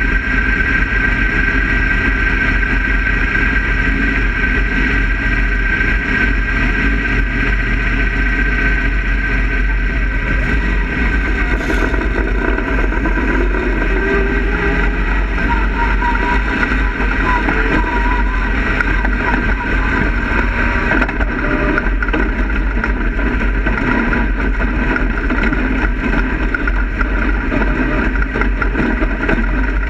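Dirt-track race car's engine running steadily, heard from inside the cockpit as the car pulls off and rolls along behind other race cars.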